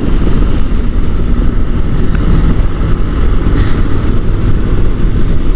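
Honda NC750 motorcycle riding at a steady pace, its parallel-twin engine running as a low hum under loud rushing wind noise on the microphone.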